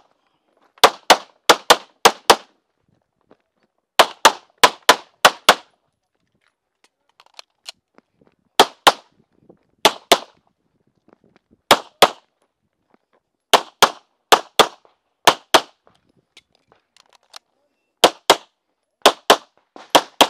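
Semi-automatic pistol fired in rapid strings of shots, two to six at a time about a third of a second apart, with short pauses between strings.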